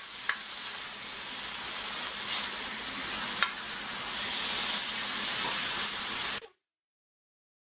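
Beef strips sizzling on a hot plough-disc griddle as the added water fries off, with a metal spatula stirring and scraping now and then in a few short clicks. The sizzle cuts off suddenly near the end.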